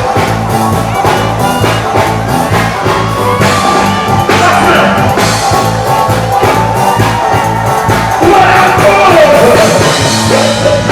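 Loud dance music with a steady beat, a repeating bass line and singing, played at a live event.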